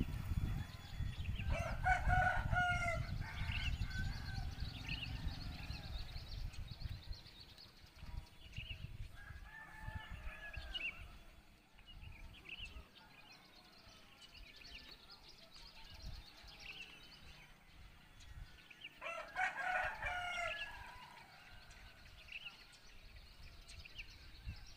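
Roosters crowing: two loud crows, one a couple of seconds in and another about three-quarters of the way through, with a fainter call in between, over scattered small-bird chirps. A low rumble sits under the first few seconds.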